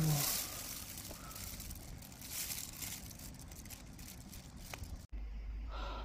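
Plastic bag rustling and crinkling as it is handled, over a steady hiss. A little after five seconds it cuts off abruptly, leaving only a low steady hum.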